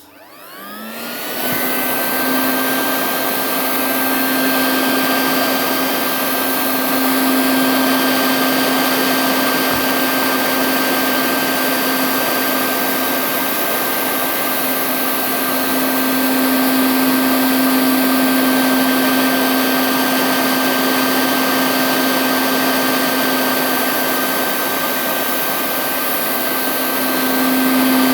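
A small electric motor-driven tool switched on with a click, spinning up within about a second and a half and then running steadily at an even pitch with a rushing hiss.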